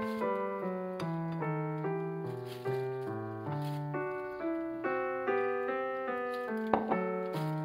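Background piano music, a gentle melody over a moving bass line, with one short click about three-quarters of the way through.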